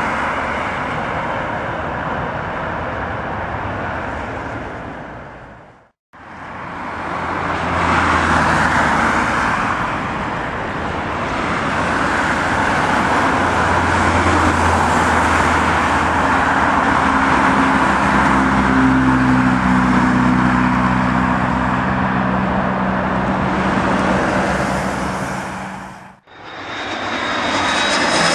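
Jet airliner engines in three clips joined by abrupt cuts at about 6 and 26 seconds: a British Airways airliner close to touchdown, then a Singapore Airlines Airbus A380-800 running on the ground with a steady rush and a low hum for about twenty seconds, then a Qatar Airways Airbus A330-200 on final approach.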